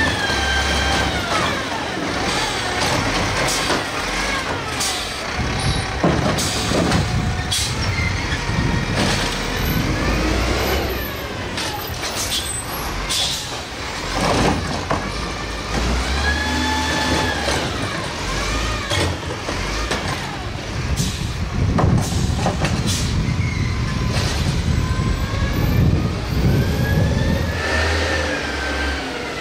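Garbage truck's diesel engine revved in neutral, its pitch climbing and falling back several times over a steady idle. Sharp clicks and short knocks come in between the revs.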